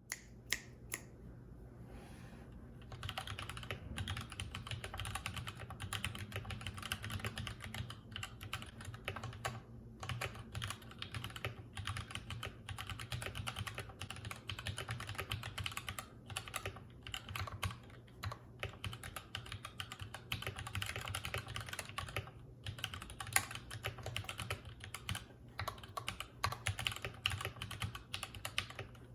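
Durgod Hades 68 mechanical keyboard with Gateron Yellow linear switches being typed on: a few single keystrokes, then fast continuous typing from about three seconds in.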